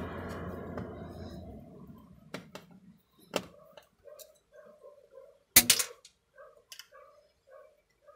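Screwdriver working the screws out of a keyboard's controller circuit board, giving scattered sharp clicks and taps on the plastic case, the loudest a quick cluster midway, with short faint squeaks between them. A low rumble fades out in the first two seconds.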